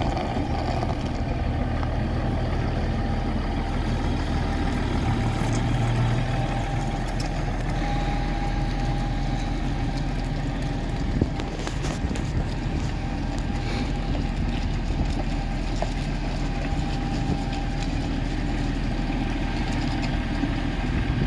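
Massey Ferguson 7495 tractor's six-cylinder diesel engine running steadily at low revs as the tractor drives slowly. There is one brief knock about halfway through.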